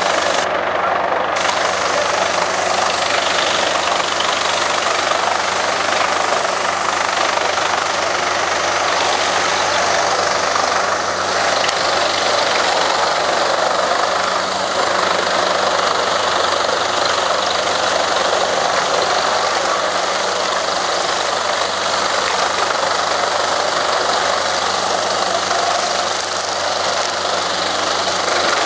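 Large mobile wood chipper running steadily under load, its heavy engine and cutting drum working through whole tree stems fed in by a loader while chips are blown out of the spout.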